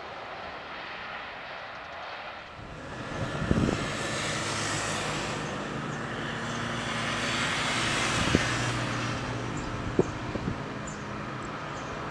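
Airbus A320-200 jet engines roaring as the airliner rolls out along the runway after landing; the roar swells about two and a half seconds in and stays loud, with a few brief sharp knocks.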